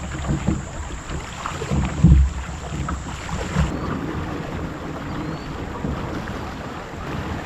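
Wind buffeting the microphone and water moving around a kayak on a river, with a few heavy low bumps, the loudest about two seconds in.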